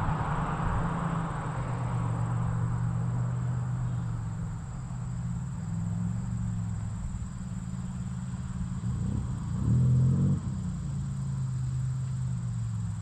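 Supercharged Buick 3800 V6 with a full 3-inch exhaust running at low revs some way off, a steady low rumble, with one short rev about nine to ten seconds in.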